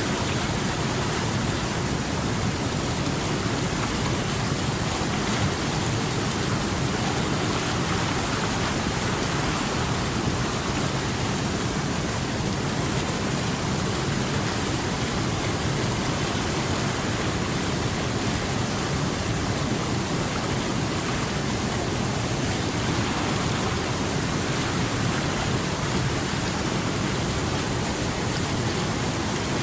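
Water flowing steadily over rocks, a continuous even rush with no breaks or separate splashes.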